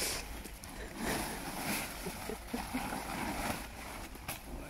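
Muddy plastic tarpaulins rustling and crinkling as they are pulled up and bundled by hand, in uneven swells.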